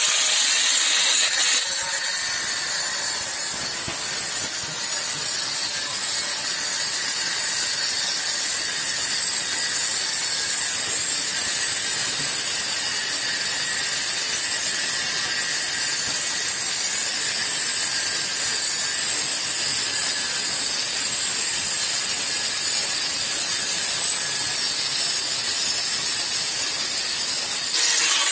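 Angle grinder with a new 1 mm abrasive cut-off disc cutting through thin sheet steel: a steady, high-pitched grinding hiss.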